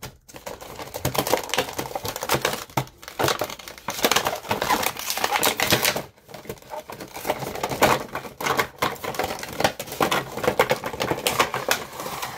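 Cardboard Funko Pop box being opened by hand and its clear plastic insert tray pulled out and handled: dense crinkling and clicking of plastic and card, with brief lulls about three and six seconds in.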